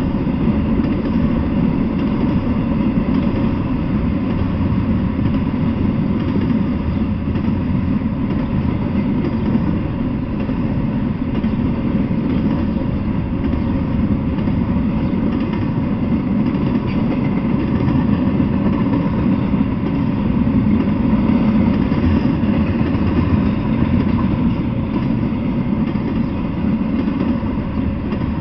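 Freight train rolling past: a steady, loud rumble of wheels on rails.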